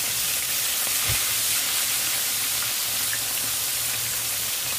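Battered frogs deep-frying in a pan of hot oil: a steady sizzling hiss, with one low thump about a second in.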